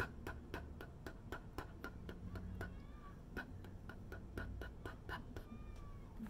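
A woman voicing the letter P's sound over and over: a long run of short unvoiced 'p' puffs, about three to four a second, imitating the putt-putt of a motorboat engine.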